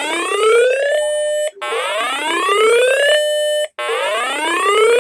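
Electronic whoop alarm tone: a rising sweep held briefly at the top, then a short break, repeating about every two seconds.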